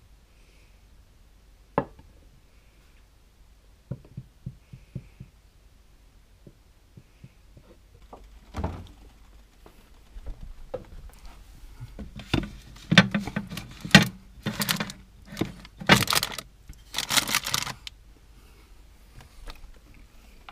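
Kitchen handling sounds: a few light clicks and taps, then from about twelve seconds in a run of louder knocks, clatter and rustling as a plate goes into a fridge and the camera is picked up and moved.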